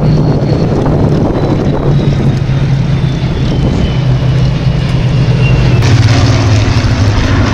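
Spitfire fighters' V12 piston aero engines droning as they fly past, a steady low drone with a faint high whine that falls slowly in pitch. The sound swells about six seconds in as a close formation of three Spitfires passes.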